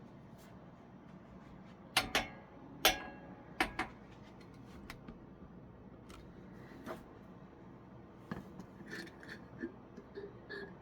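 Objects being handled and set down on a work surface during gluing: a quick run of sharp knocks and clinks about two to four seconds in, the loudest with a short ring, then lighter scattered ticks and rustles.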